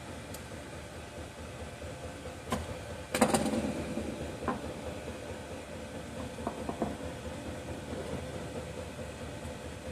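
Hand work on old, sticky electrical tape wrapped around a chainsaw's spark plug wire, as the tape is scored and picked loose. It gives a few small clicks and a short scraping rustle about three seconds in, over a steady background hum.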